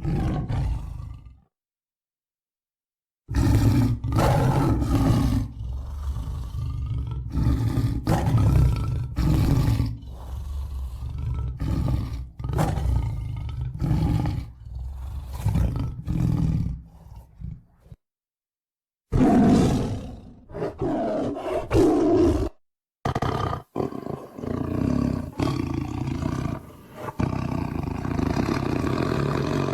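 Tiger growling and roaring in a run of repeated bursts, spliced from several recordings, with sudden cuts to dead silence about two seconds in, again past the middle and briefly a few seconds later.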